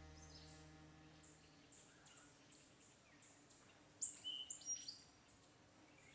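Faint ambience with small birds chirping high and briefly, and a short louder flurry of chirps about four seconds in.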